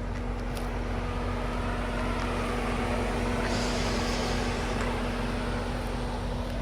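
Steady vehicle drone: a constant low hum with an even rushing noise, and a short hiss about three and a half seconds in.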